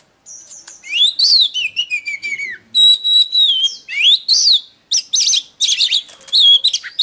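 Oriental magpie-robin (kacer) singing a varied run of clear whistled phrases, with rising and falling glides, a held steady whistle about three seconds in, and quick chattering notes between short pauses.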